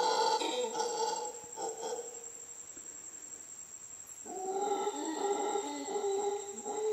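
Howler monkeys howling in two long bouts of deep, droning roars: one dies away about two seconds in, and the next starts a little after four seconds. A steady high insect whine runs beneath.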